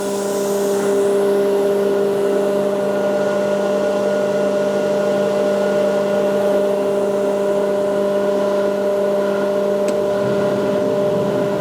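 Eaton 75 HP air-cooled rotary screw air compressor running steadily: a constant hum with several steady tones over a rushing noise.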